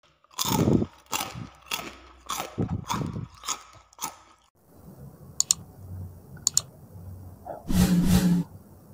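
Close-miked crunching of crisp food, a bite about every half second for the first four seconds. After a brief break come a few faint clicks and a short louder rustle near the end.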